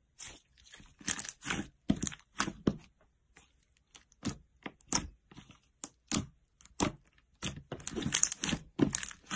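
Slime being squished and pulled, giving an irregular run of sharp crackling pops and clicks, denser in clusters about a second in and again near the end.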